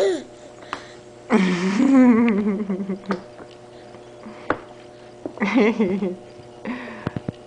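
Infant vocalizing without words: a long warbling coo or squeal about a second in, then two shorter rising-and-falling calls later on, with a few light clicks near the end.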